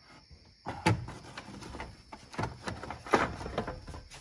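BMW radiator fan's plastic shroud scraping and knocking against engine-bay parts as it is worked down into place. It starts about a second in with a sharp knock, then comes irregular rubbing and clatter, with another loud knock about three seconds in.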